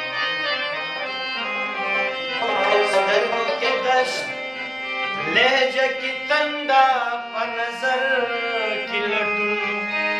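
A man singing a ghazal, his voice coming in about halfway through over steady held instrumental tones, with a few sharp percussion strikes.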